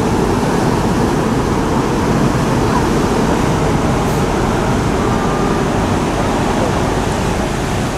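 Steady, loud rushing noise of the cruise ship AIDAcara passing close by: water churning along its hull over a deep rumble.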